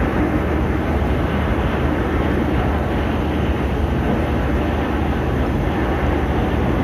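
Small fishing boat's 8 hp outboard motor running steadily.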